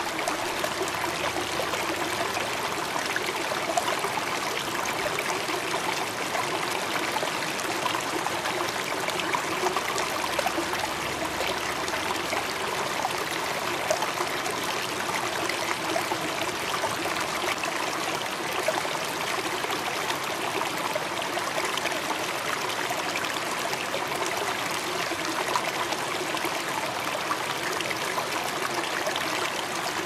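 Steady running water, an even rushing and trickling with no tune or beat and small irregular peaks in level.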